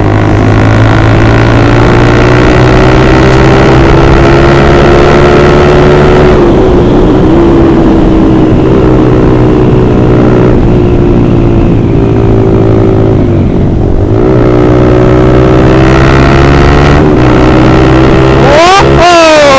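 Honda CBR150R's single-cylinder engine blaring through a loud aftermarket Austin Racing exhaust while riding, its pitch drifting slowly up under throttle, dropping briefly about two-thirds through, then a quick sharp rev near the end.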